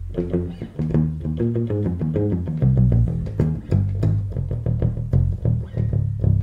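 Six-string electric bass played with a pick in a quick run of short, punchy notes. The tone is set on the B pickup alone wired in series, with the mids around 650 Hz cut slightly and the treble boosted.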